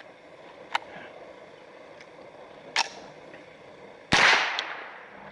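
Gunshots: two faint, sharp cracks about two seconds apart, then one loud shot about four seconds in that rings off over half a second.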